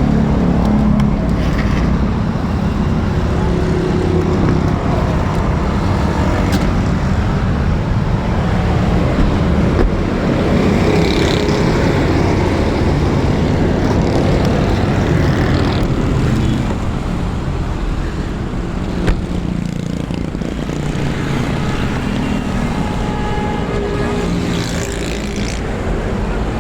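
A car's engine running steadily, with road traffic noise around it; it drops slightly in level about two-thirds of the way through.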